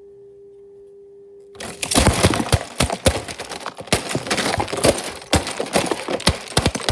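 Plastic Lego bricks clattering and cracking apart in a rapid, loud run of clicks and knocks as a built Lego set is smashed by hand, pieces scattering across a baseplate. It starts about a second and a half in, after a steady hum.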